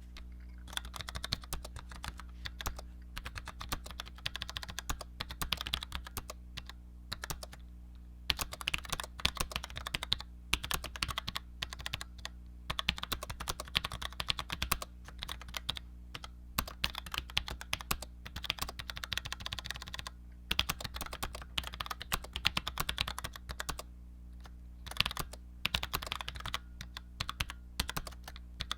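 Typing on a Cherry G84-4100 compact keyboard with Cherry ML low-profile mechanical switches: runs of quick key clicks broken by short pauses. A steady low hum sits underneath.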